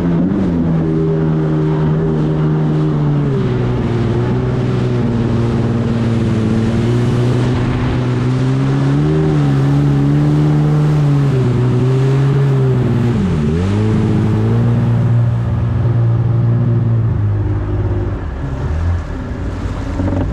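Jet ski engine running at speed across the water over a steady rush of wind and water. Its pitch wavers, drops sharply about thirteen seconds in as the throttle comes off and picks back up, then settles lower near the end as the ski slows.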